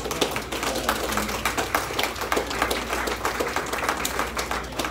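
Audience applauding, with one person clapping close by.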